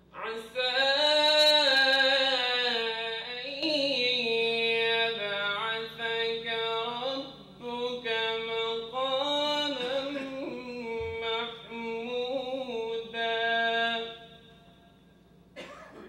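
A man's unaccompanied melodic chanting into a microphone, in long held, wavering notes with pauses for breath, typical of Qur'an recitation. The voice stops about two seconds before the end.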